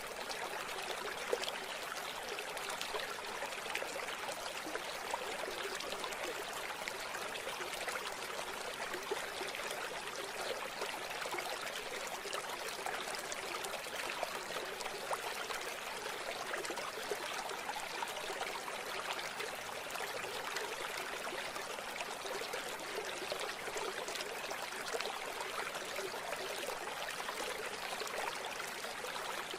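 River water flowing over stones: a steady, even rush of water that holds without a break.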